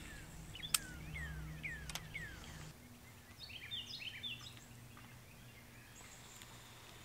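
Songbirds calling: a series of falling whistled notes over the first couple of seconds, then a quicker run of higher stepped notes. A sharp click just under a second in and another about two seconds in, over a faint low steady hum.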